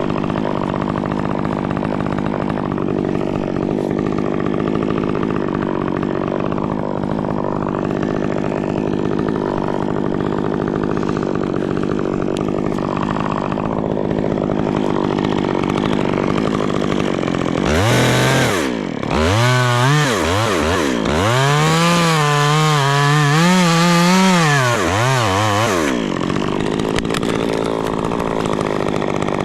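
A steady idle drone; about 18 seconds in, a Stihl chainsaw revs to full throttle and cuts for around eight seconds, its pitch dipping and recovering as the chain bites into the white fir, then drops back to idle. It is finishing the cut on a fir top that did not go over as easily as expected.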